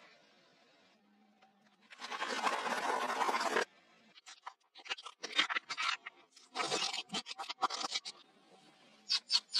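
Crunching and scraping as something is crushed: a quiet start, then a long crunch of about a second and a half, followed by several clusters of short crackling crunches.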